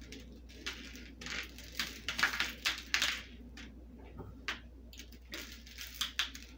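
Sprinkles pinched from a bowl and scattered over a chocolate-dipped pretzel rod, falling onto a paper plate as irregular short rustles and light ticks, over a faint low hum.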